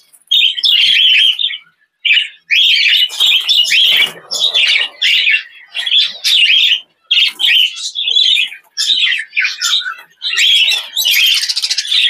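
A group of budgerigars chirping and chattering close by, a rapid stream of short calls with brief pauses.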